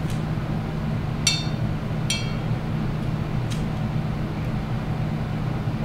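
Adhesive tape pulled off the roll in two short, high, screechy rips, about a second apart, while the elf is taped to a metal lamp pole. A faint tick follows, over a steady low hum.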